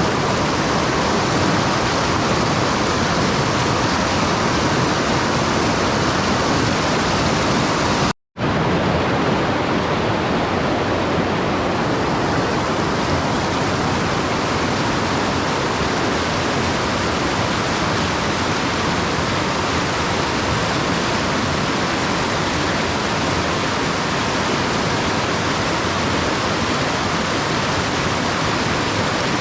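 Mountain stream water rushing steadily over rocks, with a brief break in the sound about eight seconds in.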